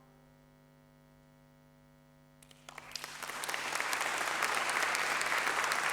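Concert audience applause: after a brief hush with the last shamisen notes faintly dying away, clapping breaks out about two and a half seconds in and swells to steady applause.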